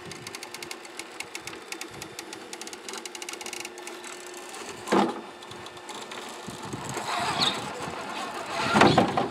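Axial SCX6 RC rock crawler's electric motor and gear drivetrain whining steadily with rapid fine clicks as it crawls over rock. The whine stops about four and a half seconds in, with a sharp knock shortly after and louder rough noise toward the end.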